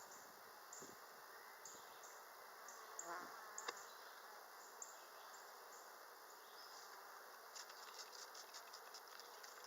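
Honeybees humming steadily around an open hive, with a louder buzz about three seconds in and light clicking near the end.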